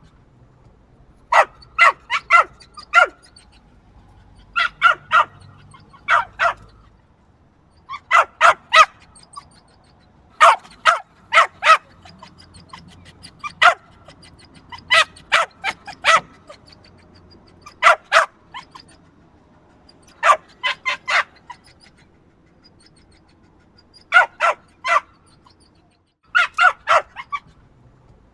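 Small yappy dog barking in quick bursts of three to five high-pitched yaps, with short pauses between bursts.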